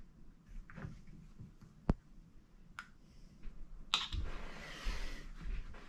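A few sharp, scattered clicks of small metal engine parts and tools being handled during top-end assembly of a four-stroke dirt bike engine. About four seconds in, a louder click is followed by a steady rustling hiss.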